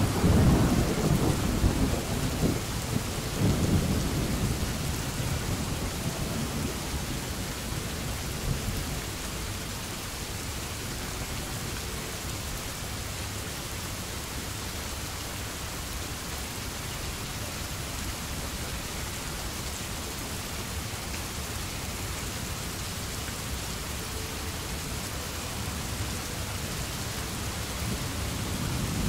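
Steady rain falling, with a low rumble of thunder right at the start that dies away over about eight seconds, and another rumble building near the end.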